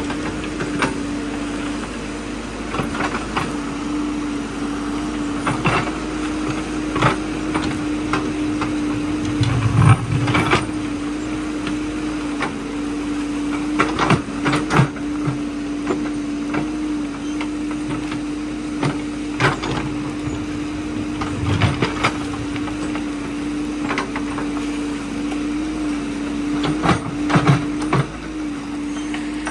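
Caterpillar backhoe loader's diesel engine running steadily with a constant hum while the backhoe digs a creek bed. Irregular knocks and clanks from the bucket working through stones and mud, loudest about ten seconds in and again near the end.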